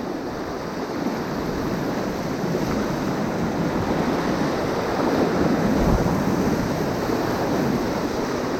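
Whitewater rapids rushing in a steady, even noise, with no single splash standing out.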